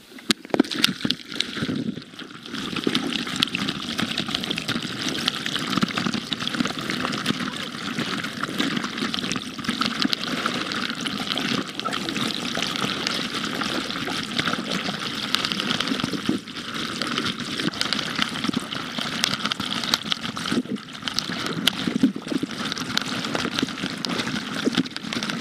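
Whitewater pouring over a kayak pinned vertically in a river siphon, heard from a camera engulfed in the flow: a loud, steady rush of water that comes in abruptly, with choppy splashes in the first couple of seconds.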